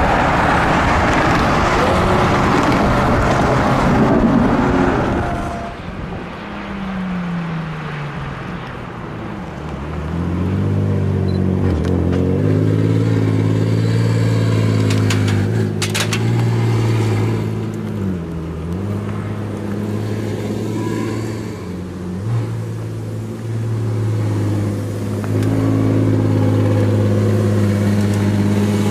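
A Lamborghini Aventador passes at speed with loud road and wind noise. Then a Pagani Huayra's twin-turbo V12 drops in revs and runs on at low revs, a steady low note with a few brief dips and blips in pitch.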